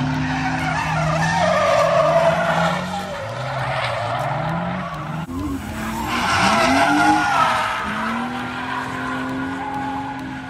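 Drift car sliding sideways through a corner, tires squealing, its engine revving up and down in pitch. There is a brief dip about five seconds in, then the sliding and revving carry on.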